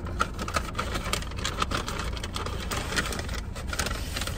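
Paper takeout bag rustling and crinkling in quick irregular bursts as a hand digs through it and lifts it, over a steady low hum of the parked car running.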